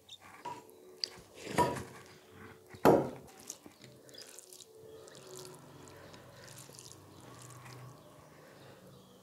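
Close-miked wet eating sounds of eating by hand: fingers squishing rice with jhol chicken curry gravy on a plate, with small wet clicks and two louder wet smacks about one and a half and three seconds in.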